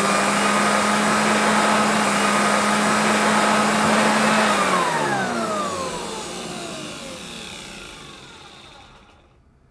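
An electric blower-type motor whining at a steady pitch, then spinning down with falling pitch from about halfway through and fading out near the end.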